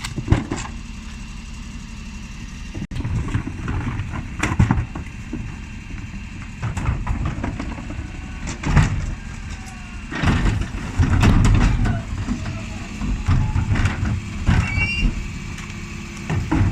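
Dennis Elite 6 bin lorry running at the kerb while its Terberg OmniDEKA bin lifters cycle, with repeated clattering bangs of wheelie bins being tipped and knocked against the lift. A longer, heavier stretch of rumbling and banging comes about two-thirds of the way through.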